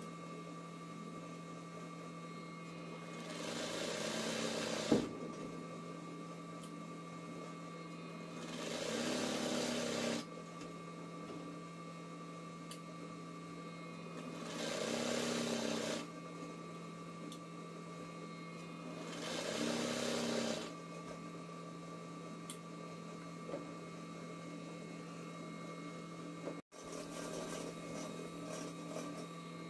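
RANEW 130 zigzag sewing machine doing free-motion embroidery, stitching in four short runs of a second or two each with a steady hum between them. A sharp click comes at the end of the first run.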